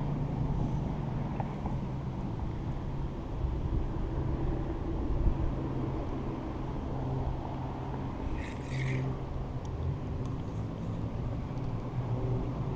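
Steady hum of road traffic with an engine's low drone. A brief high squeak comes a little past the middle.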